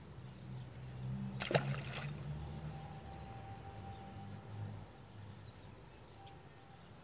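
A single short splash about a second and a half in, as a small tilapia is dropped back into the pond, over a low hum and a steady high insect whine.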